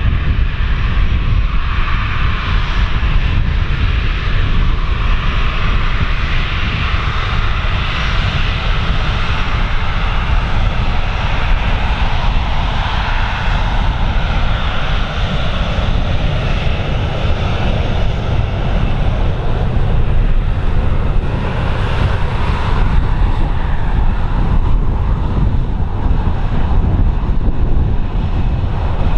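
Airliner engines running at a steady level, with strong wind rumbling on the microphone.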